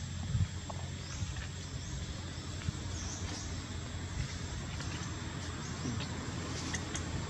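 Outdoor ambience: a steady low rumble with a thin, steady high whine and scattered faint, short high chirps and clicks.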